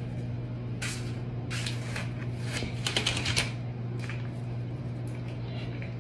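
A cat scuffling on a tile floor as it bats and grabs scraps of paper: a series of short, scratchy rustles and scrapes, busiest about three seconds in, over a steady low hum.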